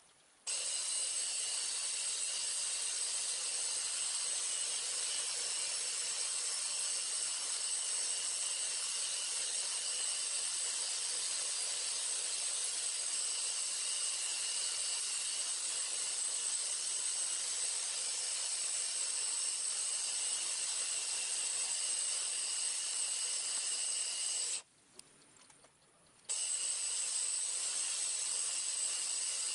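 Electric belt sander grinding the steel of a hatchet head: a steady hiss with a high whine. It breaks off abruptly for about a second and a half near the end, then carries on.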